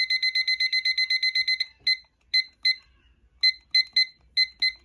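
Digital kitchen timer beeping as its minute count is set: a fast run of short high beeps, about eight a second, that stops about a second and a half in. Then come single beeps, one per press of the minute button.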